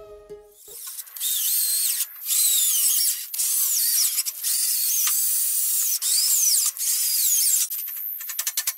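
MIG welder arc crackling and hissing in several runs of one to two seconds, with short breaks between them. Near the end, a quick run of sharp hammer taps on steel.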